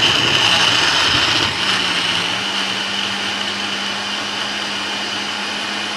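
Countertop blender running, crushing ice cubes with strawberries and bananas into a smoothie. It is rough and loud for the first second and a half while the ice breaks up, then settles into a steady, even running note as the mix turns smooth.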